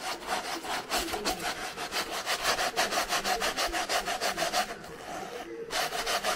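A hand scrubbing the padded fabric cover of a baby bouncer seat, worked in with spray cleaner, in quick back-and-forth strokes at about five a second. The strokes pause briefly a little before the end, then start again.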